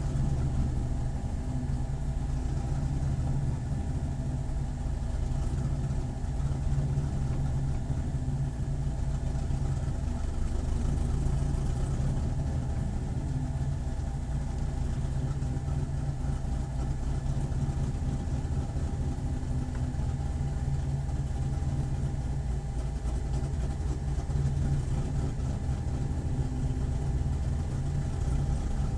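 Corvette C7 racecar's V8 engine running steadily, its pitch holding nearly level with no big revs.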